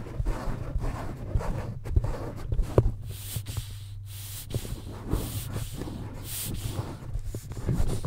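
Foam microphone cover rubbed and handled right against the microphone, giving close crackling, scratching and a low handling rumble. From about three seconds in, several short hissing puffs of air from a rubber blower bulb used to clean the microphone.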